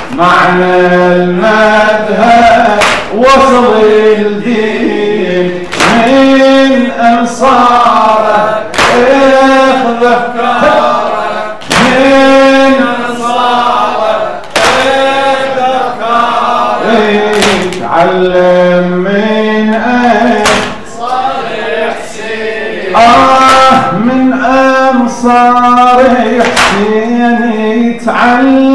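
A man chanting a Muharram lament (noha) in long, held phrases, with sharp slaps that recur every few seconds.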